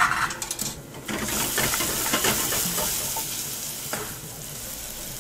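Diced onions, soft from steaming, sizzling in a stainless steel saucepan over a gas flame while a wooden spatula stirs and scrapes them around the pan. A few knocks come in the first second, and the sizzle starts about a second in and slowly fades.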